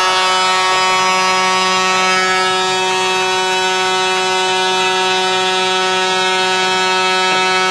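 Arena goal horn blaring one long, unbroken note for about seven and a half seconds, signalling a home-team goal.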